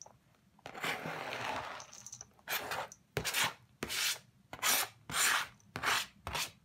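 Grated zucchini and chopped pistachios sliding off a plastic cutting board into a stainless steel mixing bowl, with a soft rustle first. Then a blade scrapes across the board in about seven quick strokes to push off the last bits.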